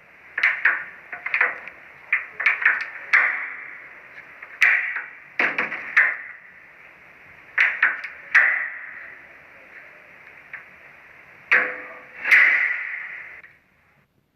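Heavy knocking and banging on a door in irregular bursts, some single blows and some quick clusters, each echoing after it. It is a horror-style door-knock sound effect, and its last loud blows come about twelve seconds in before the echo dies away.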